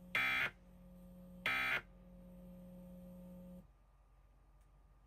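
Emergency Alert System end-of-message (EOM) data tones: two short, harsh digital buzzes, each about a third of a second and about a second apart, the last two of the three EOM sends that close the alert. A faint steady hum underneath cuts off about three and a half seconds in.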